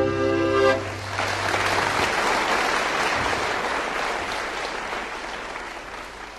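The last sung chord of a live song cuts off just under a second in, and audience applause follows, slowly fading out.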